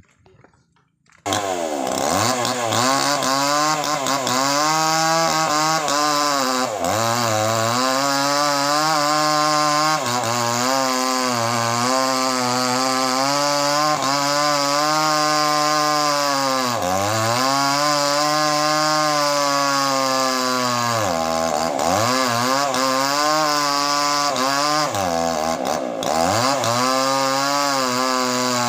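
Small chainsaw running at full throttle, cutting through a large log. The sound cuts in abruptly about a second in, and the engine's pitch sags repeatedly under the load of the cut and picks back up.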